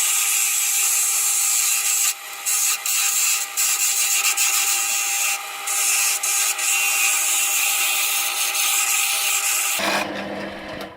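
Wood lathe spinning a blank while a gouge roughs it down to round. The cutting is a steady hiss over the machine's hum, with a few brief breaks where the tool comes off the wood. The cutting stops about ten seconds in, and the sound fades near the end.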